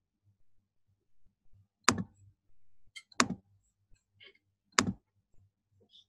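A few sharp, separate clicks, the loudest two about a second apart, typical of a computer mouse being clicked while a presentation is opened for screen sharing. Under them is a faint low hum that cuts in and out, carried over the video call's audio.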